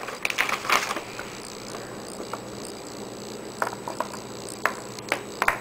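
Scattered light clicks and taps as small cat treats are dropped into the hard plastic cups of a cat feeding puzzle, several in the first second and more after about three and a half seconds, over a steady low hum.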